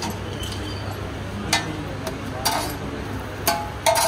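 Metal spatula knocking against a flat steel griddle (tawa) where pav buns are toasting: sharp clinks about once a second, two close together near the end, over a low steady hum.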